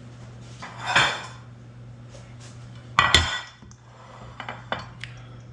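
Kitchen dishes and cookware being handled: a clatter about a second in, a louder clang with a short ring about three seconds in, then a few light clicks, over a steady low hum.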